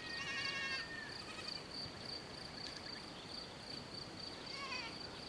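Two faint bleats from miniature goats: a wavering call in the first second and a shorter one near the end, over the steady high chirring of crickets.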